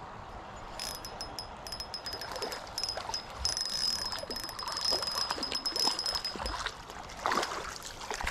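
Spinning reel being cranked while a hooked sand bass is fought in: a steady high metallic whine with fast clicking that stops just before 7 s. It is followed near the end by a few splashes in the shallows as the fish is landed.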